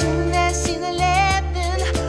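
Live band music: a wavering melody with vibrato over sustained bass notes and regular drum hits.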